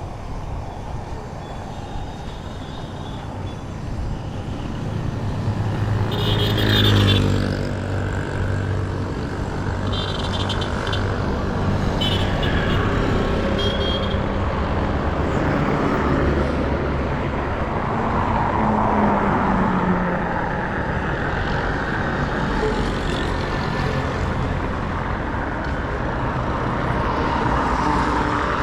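Street traffic: motor vehicles passing steadily, one louder engine going by about seven seconds in, with a few short high-pitched sounds through the middle.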